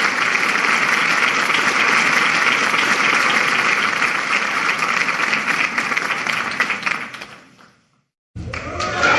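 Applause heard over a video-call connection, a dense steady clapping that fades out about seven and a half seconds in. After a moment of silence, music starts near the end.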